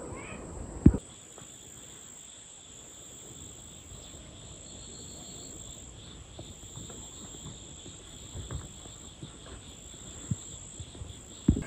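Steady chorus of insects, a continuous high shrill with a second band a little lower, with a few short dull low thumps, the loudest about a second in and another near the end.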